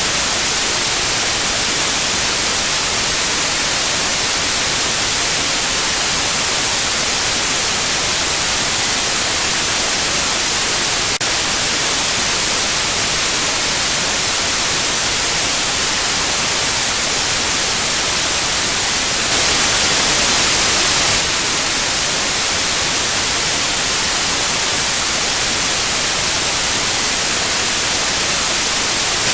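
Tinnitus-therapy signal: steady synthetic white noise with a thin, high-pitched tone at 9645 Hz. The tone cuts out about six seconds in and returns around sixteen seconds, and the hiss gets slightly louder for a couple of seconds around twenty seconds.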